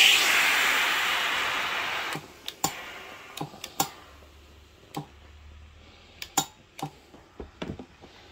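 Tefal steam generator iron releasing a loud hiss of steam for about two seconds, which then fades away. Scattered sharp plastic clicks and knocks follow as the iron is handled on its base.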